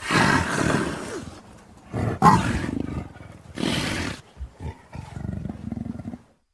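Blended leopard and wolf calls made into a sound effect: three loud big-cat roars in the first four seconds, then a quieter, lower stretch that cuts off shortly before the end.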